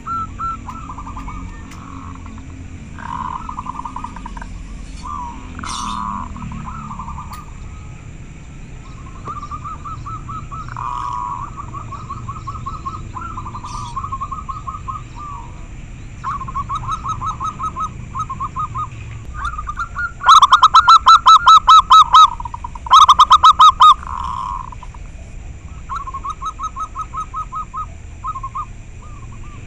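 Zebra dove (perkutut) cooing: phrases of rapid, stuttering trilled coos, repeated every second or two. Two phrases about 20 and 23 seconds in are far louder than the rest, from a bird right at the microphone.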